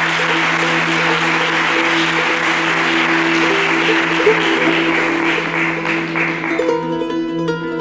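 Audience applauding at the end of a lecture, over plucked-string music. The applause dies away about seven seconds in, leaving the music playing alone.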